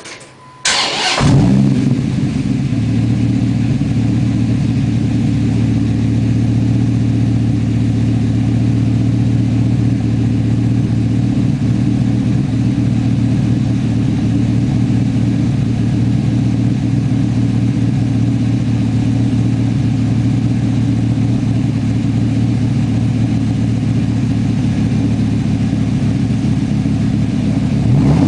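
Dodge Ram SRT-10's 8.3-litre V10 starting through a Magnaflow cat-back exhaust: a brief crank about half a second in, then it catches with a short rev flare and settles into a steady idle. Near the end the pitch begins to rise as it is revved.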